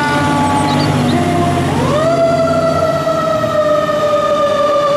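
Fire engine siren wailing: the tone slides down, rises sharply about two seconds in, then slowly falls again, over the low rumble of the truck's engine.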